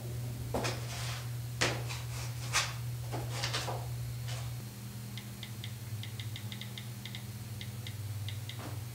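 Smartphone touchscreen keyboard clicking as a text message is typed: quick, irregular crisp ticks through the second half, over a steady low hum. Before that come a few brief scuffing, rustling sounds.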